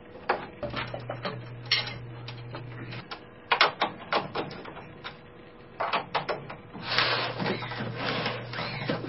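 Hands handling a drum kit's hoops, hardware and heads: scattered clicks, rattles and scrapes with a few sharper taps, over a faint steady low hum.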